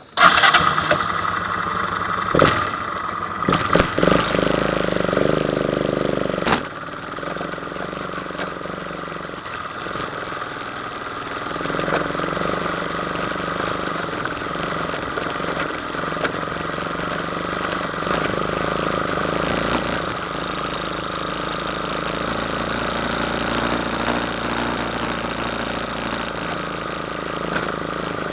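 ATV engine running while riding a trail. About four seconds in it revs up, rising in pitch, and drops back near six and a half seconds, then runs steadily.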